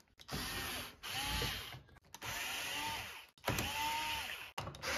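Cordless drill-driver backing screws out of the dishwasher's metal mounting brackets in short runs of about a second each, the motor whine rising then falling in pitch with each pull of the trigger, with brief stops between runs.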